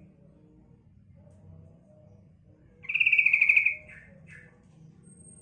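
Female yellow-vented bulbul (trucukan) giving one rapid trilled call about three seconds in, a little under a second long. Two short, softer notes follow.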